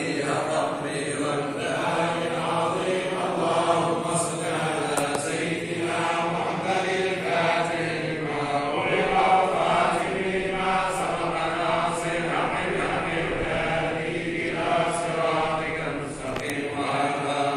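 A group of men chanting together in unison, a religious chant carried on in one unbroken stream of sung phrases.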